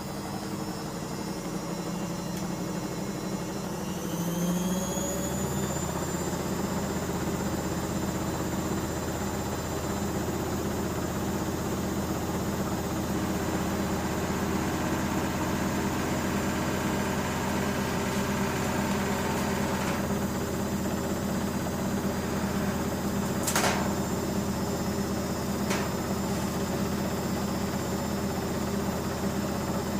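Bauknecht GreenIntelligence Super Eco 6413 front-loading washing machine spinning up: its motor whine rises in pitch over the first few seconds, then holds a steady high-speed spin hum. A couple of sharp clicks come later on.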